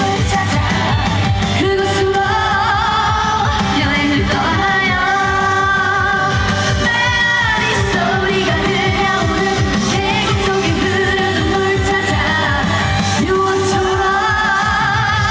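A woman singing a trot song live over an amplified backing track with a steady beat, her voice wavering with vibrato on held notes.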